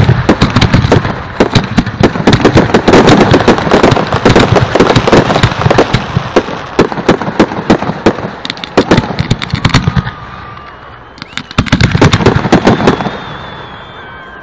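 Fireworks display through a phone microphone: a dense, rapid run of cracks and bangs from bursting shells, easing about ten seconds in, then another short flurry before it fades near the end.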